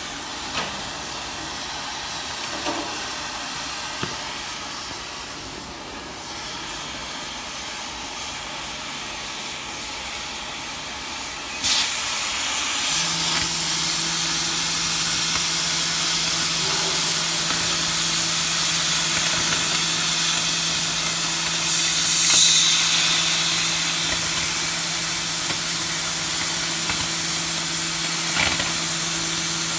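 Oxy-fuel cutting torch hissing steadily on 18 mm carbon steel. About twelve seconds in, the hiss jumps suddenly louder and harsher, typical of the cutting oxygen opening to pierce and cut. A second later a steady low hum joins in.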